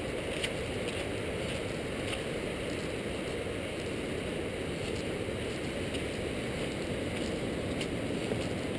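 Steady low rushing noise outdoors, with a few faint clicks scattered through it.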